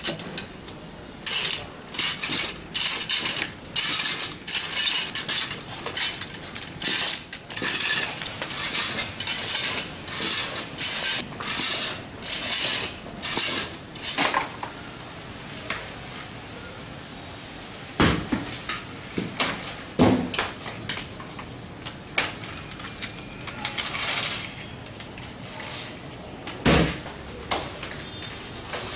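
Steel coconut tree climbing device clanking against the palm trunk as the climber shifts it upward, about two sharp metallic clanks a second for roughly the first half. After a pause come a few scattered knocks and three heavier thumps.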